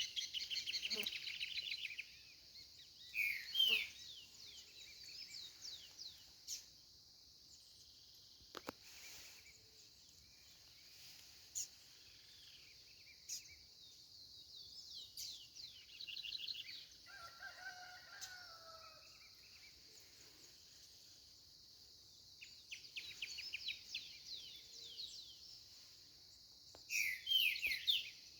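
Songbirds calling and singing in short, quick repeated trills, loudest at the start and again near the end, over a steady high-pitched hiss. About two-thirds of the way through a rooster crows faintly in the distance.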